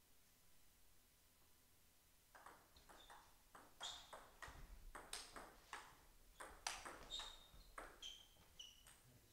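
Table tennis rally: the plastic ball clicking off the rubber paddles and bouncing on the table, a quick, irregular run of sharp ticks and short pings. It starts about two seconds in and stops just before the end.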